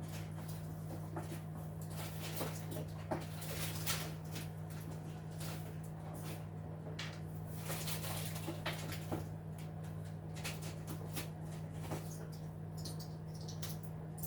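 Washing machine running: a steady low motor hum with irregular short clicks and swishes from the drum.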